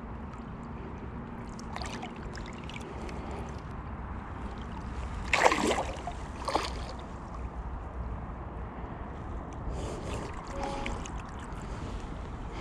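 Shallow river water sloshing and flowing, with a low rumble of wind on the microphone. A sharp splash about five and a half seconds in, and a smaller one about a second later.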